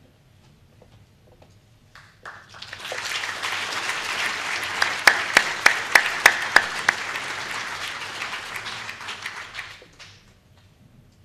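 Audience applauding, starting about two seconds in and dying away near the end, with a run of sharper, louder claps close by in the middle.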